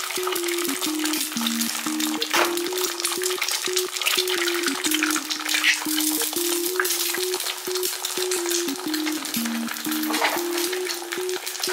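Eggs frying in a hot frying pan: a steady crackling sizzle, flaring louder about two seconds in. A simple background melody of low stepped notes plays alongside.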